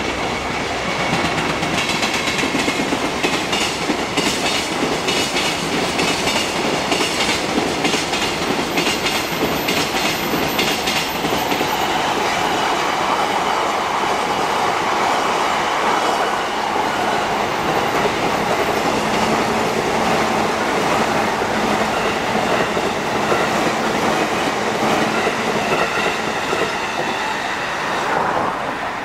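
Electric train passing at length, its wheels clacking rhythmically over rail joints for several seconds, then its sound fading away near the end.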